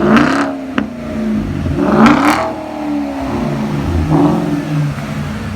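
Porsche Panamera engine revved in three quick throttle blips, each rising and falling back to idle, the loudest about two seconds in. A single sharp crack sounds just under a second in.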